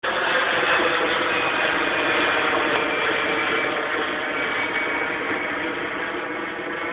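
Jet airliner passing overhead: a steady rushing engine noise with a faint high whine that slides slightly down in pitch, slowly fading away.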